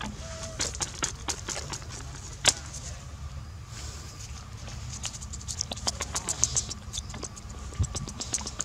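Baby macaque chewing food with quick wet clicks and smacks in clusters, with one sharper click about two and a half seconds in, over a low steady rumble.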